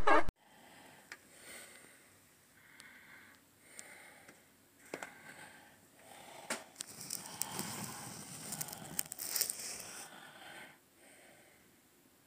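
Intro music cuts off right at the start. Then come faint handling noises: scattered light clicks and knocks, and a louder rustling hiss in the middle lasting a few seconds.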